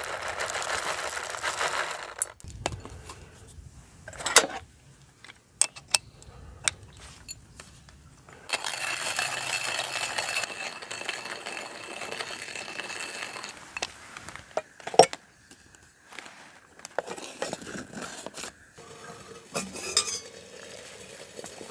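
Coffee being made with metal camp gear. Coffee pours from a paper bag with a rustle at the start, then come scattered clicks and clinks of metal containers and a few seconds of steady rasping in the middle, which fits a hand coffee grinder being cranked. A sharp clink comes about fifteen seconds in, and the lid of the stainless steel cook pot clinks near the end.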